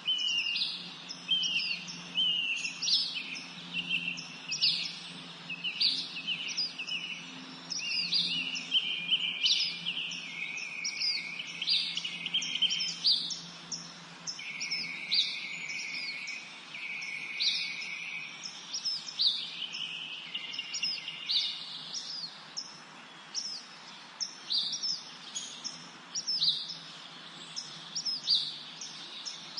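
Several songbirds singing and chirping at once in a spring forest chorus: a constant stream of quick, high sweeping notes, with a few longer held whistles through the middle.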